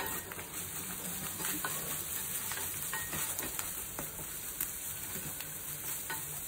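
Chopped onions and ground spices frying in oil in a stainless steel pan: a steady sizzle with scattered small crackles and ticks as the masala is stirred.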